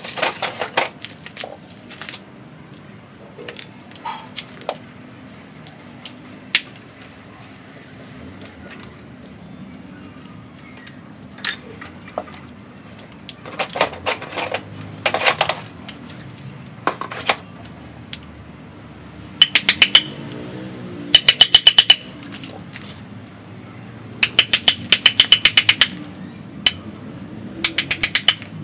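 Hand tool worked against a ficus bonsai trunk: a few scattered knocks and clicks, then, from about two-thirds of the way in, four bursts of rapid metallic ticking with a ringing tone as the blade is worked on the wood.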